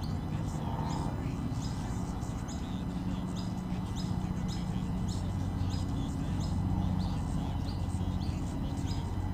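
A bird chirping over and over, a steady string of short high chirps several times a second, over a low steady hum.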